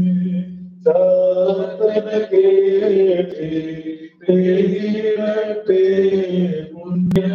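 Male voice chanting an Orthodox liturgical prayer in long, held, melodic phrases, with a short break about four seconds in. A sharp click sounds near the end.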